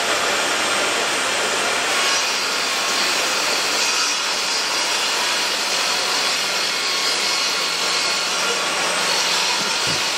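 Bosch GTS 10 XC table saw running and ripping a large plywood sheet: the blade and motor make a steady, loud noise, and the cutting sound turns brighter about two seconds in as the sheet is fed through.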